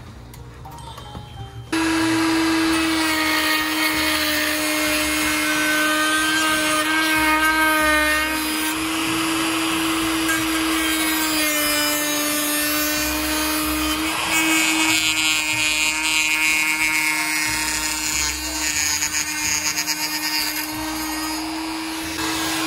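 High-speed handheld rotary tool with a cutting wheel starts up about two seconds in and runs with a steady whine, cutting a notch into a white aircraft door-frame piece. Its pitch dips slightly about halfway, and a harsher grinding sound joins in over the last several seconds.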